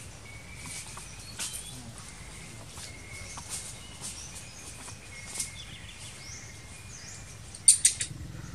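Outdoor ambience: scattered short, high bird chirps over a steady background hiss, with a quick run of four or so sharp chirps or clicks near the end, the loudest sound.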